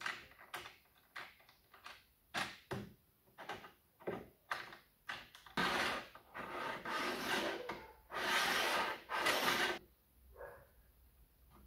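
Wooden parts being handled: a string of short knocks, then several longer scraping slides of wood rubbing on wood, each lasting about a second.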